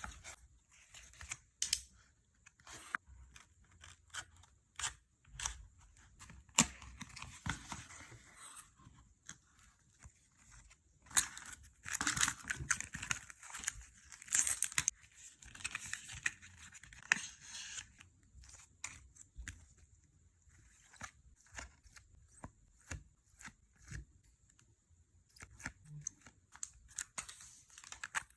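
Packaging being opened and handled: plastic and paper crinkling and tearing in several longer stretches, with many scattered taps and clicks in between.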